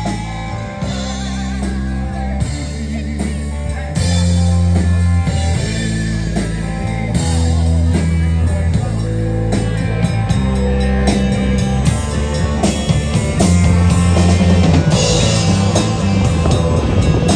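Live rock band playing: electric guitars over a bass line and a drum kit with cymbals.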